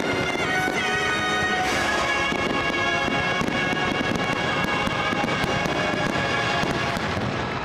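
Show soundtrack music with held chords, played loud over the dense crackling and popping of many aerial firework bursts going off at once.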